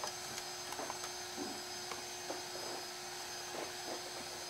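Faint, scattered light ticks of a 4 mm Allen key working a button-head bolt on a motorcycle radiator-brace rod, over a steady low room hum.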